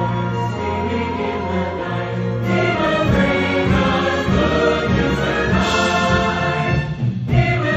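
Choir singing with an orchestra, violins bowing beneath the voices. The music swells louder about two and a half seconds in and breaks off briefly near the end before the next phrase.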